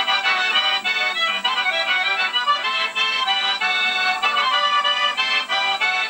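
Button accordion being played solo: a quick, lively tune of rapidly changing notes over chords. It sounds thin, with no bass.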